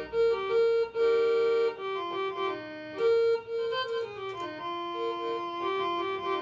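Casio CTK-3500 digital keyboard playing a melody on its built-in violin tone: a line of held single notes, some short and some longer, moving up and down in the middle register.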